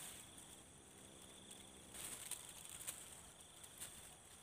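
Faint steady chirring of insects, with a few soft clicks and rustles from hands setting a wire spring rat trap in the grass.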